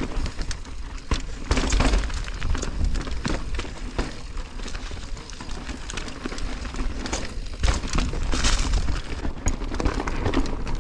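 Mountain bike clattering down a rocky trail: tyres crunching over rocks and roots, with a constant irregular rattle of chain and frame knocks over a low rumble.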